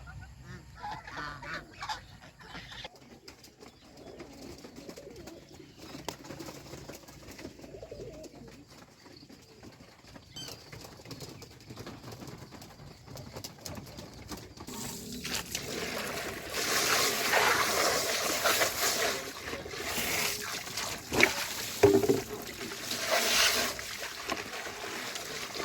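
Farmyard geese and ducks calling in low, soft murmurs. About halfway through, a louder, noisier commotion with splashing water sets in.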